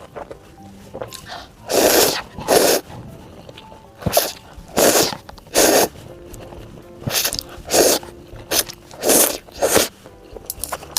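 Close-up eating sounds: a run of about a dozen loud crunchy bites and chews, each one short, with quiet background music underneath.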